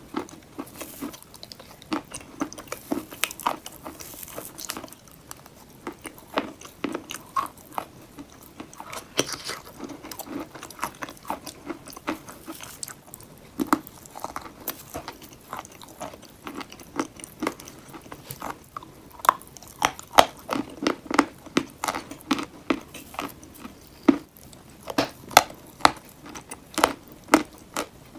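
Close-miked biting and chewing of chalk pieces cut from chalk bowls: many sharp, crisp crunches in quick, irregular succession, denser and louder in the second half.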